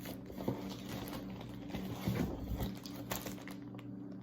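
Hands handling packaging: scattered light clicks and rustles, with a few soft knocks about two seconds in, over a steady low hum.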